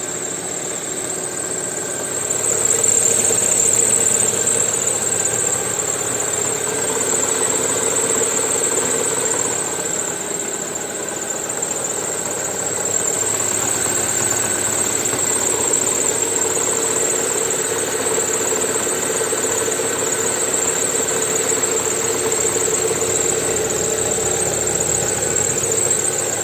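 Lada Vesta engine running with a steady high-pitched whine and a knock that the owner cannot identify. It grows a little louder about two seconds in.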